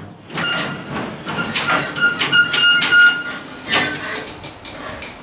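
Automatic couplers on a freight train's container wagons clanking one after another as the train starts away and the slack between the wagons runs out. A high metallic squeal rises over the clanks between about one and a half and three seconds in.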